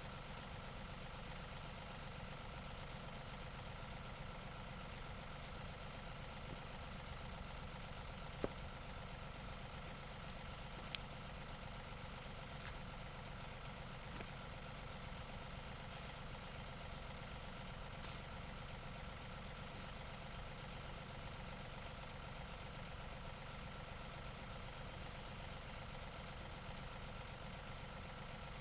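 Tractor engine running at a steady speed, with a couple of short sharp clicks partway through.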